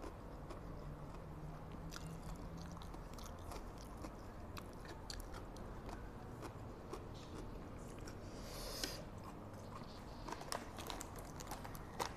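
Close-miked chewing of instant fried noodles: wet mouth clicks and smacks that grow denser and louder near the end, with a short hissing breath or slurp about three quarters of the way through.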